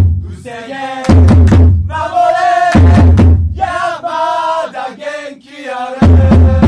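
Football supporters' chant: a group of voices singing drawn-out lines, alternating with short passages of loud, rapid drum beats.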